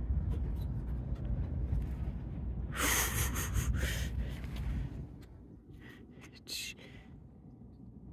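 A breathy rush close to the microphone, like a gasp or sharp exhale, about three seconds in, with a shorter one near the end. Under it a low rumble of wind on the microphone dies down after about five seconds.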